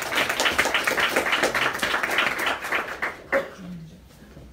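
Audience applauding, dying away about three seconds in.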